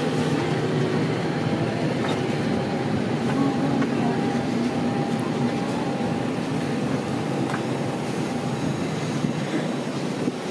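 Steady hum inside a parked Airbus A321neo's cabin, with a faint held tone running over it.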